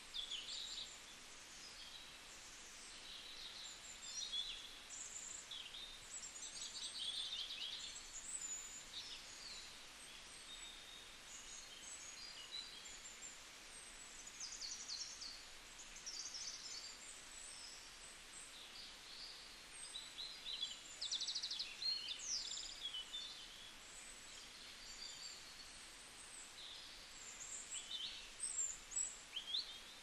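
Many small birds chirping, a dense scatter of short high calls, over a faint steady hiss.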